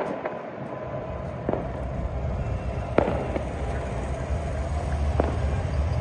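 Scattered firecracker bangs from celebrating football supporters, several sharp reports a second or two apart, the loudest about three seconds in, over a steady low rumble.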